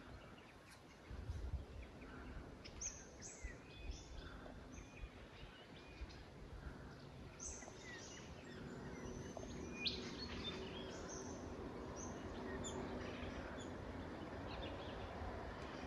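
Small birds chirping: short, high, sharp calls, mostly falling in pitch, scattered through, over a low background noise. A faint steady low hum joins about halfway through.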